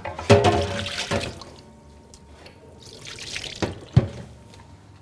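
Brief kitchen handling sounds: a clatter with a short ring in the first second, a hissing rush around three seconds in, then a single thump.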